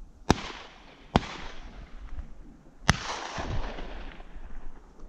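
Three shotgun shots, the second about a second after the first and the third nearly two seconds later, each a sharp crack followed by a fading echo.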